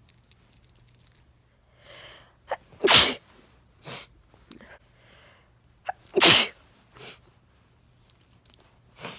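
A person sneezing twice from allergies, about three seconds apart. Each sneeze is a sharp, loud burst that follows a quick drawn-in breath, with softer breaths between.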